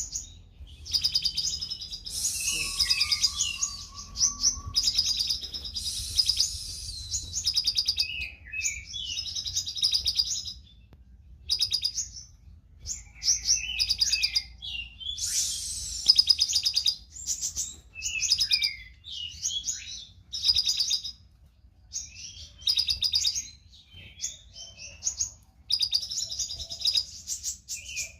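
Kolibri ninja (a sunbird) singing continuously in rapid, high chattering phrases separated by short pauses. Its song is filled with mimicked lovebird chatter.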